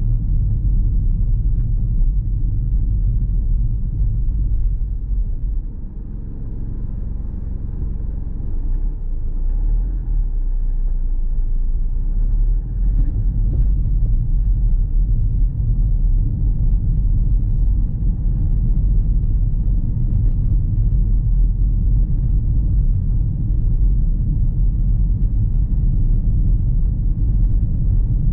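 A car driving along a road, a continuous low rumble of engine and tyres. It eases off for a moment about six seconds in, then builds back up.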